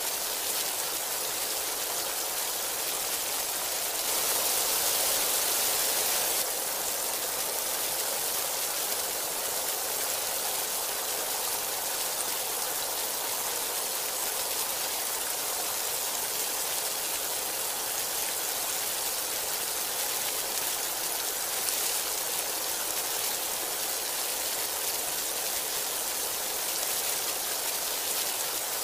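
Heavy rain falling steadily, a dense even hiss, growing louder for a couple of seconds about four seconds in.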